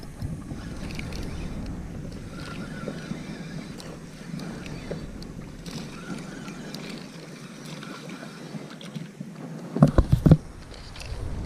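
Water lapping and sloshing around a float tube, with light wind on the microphone. A quick cluster of three or four loud knocks comes about ten seconds in.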